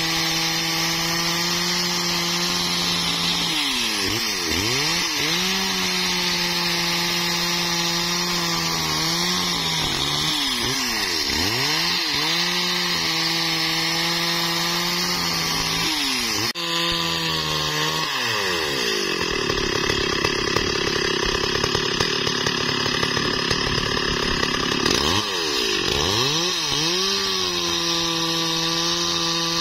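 STIHL MS 382 two-stroke chainsaw running at high revs while cutting through a thick log. The engine note dips and climbs back three times. For several seconds in the second half it runs lower and rougher, loaded down in the cut.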